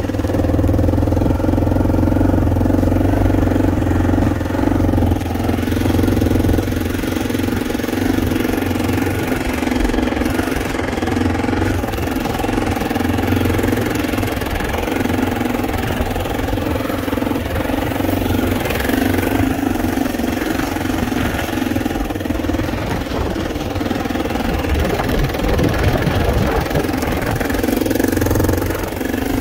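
Engine of a small off-road vehicle running at a steady speed while driving across rough ground.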